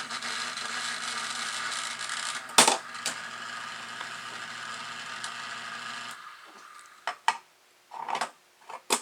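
Electric 751 toy-train log loader's solenoid-driven lift mechanism running with a steady electric hum and a mechanical buzz, with a sharp click a little over two seconds in. It stops suddenly about six seconds in, followed by a few light clicks. Its solenoid plunger is taped so it no longer bottoms out in the solenoid, which makes the mechanism nice and quiet.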